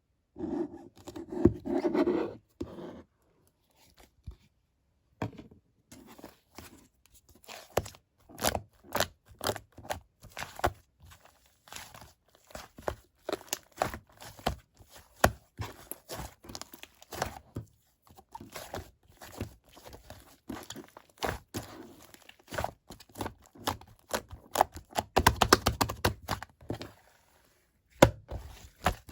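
Pink and gray slime being kneaded and mixed by hand: sticky pops and crackles come in quick, irregular succession, with a brief lull after the first few seconds.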